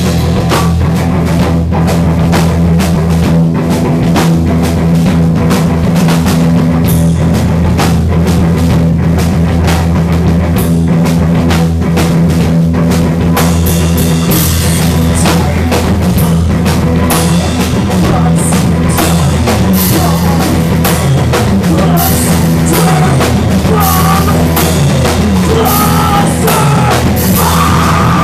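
Loud live doom/stoner metal band: distorted electric guitar and bass holding heavy low riffs over a drum kit with steady drum and cymbal hits.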